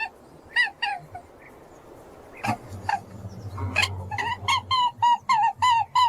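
Short, high chirping calls from a small animal, several a second, in quick runs. They break off for about two seconds midway, where only a faint low hum and a couple of sharp knocks are heard, then resume rapidly near the end.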